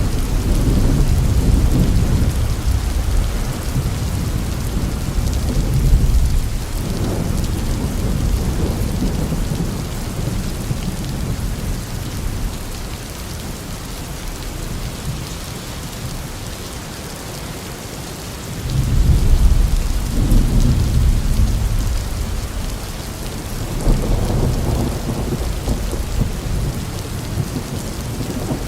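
Thunderstorm: steady heavy rain with low rolling thunder that swells near the start, again about six seconds in, and twice more in the last third.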